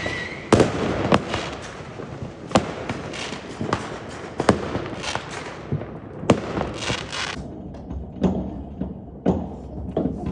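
New Year's fireworks and firecrackers going off in quick, irregular bangs, with bursts of crackling hiss between them. After about seven seconds the crackle stops and scattered duller thuds carry on.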